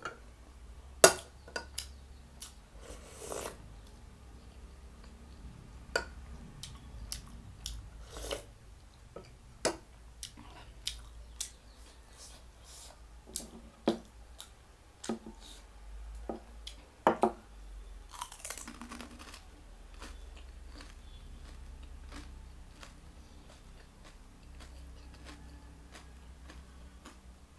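A person chewing and biting food, with irregular short crunches and clicks. The loudest come about a second in and around seventeen seconds, and the last third holds only quieter chewing.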